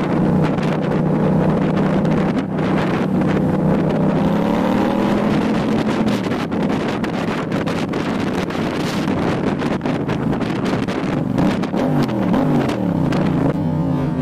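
Yamaha FZ-07's parallel-twin engine running as the motorcycle rides in traffic, with wind buffeting the microphone. The engine pitch climbs about four to six seconds in as the bike accelerates, then falls and rises again near the end.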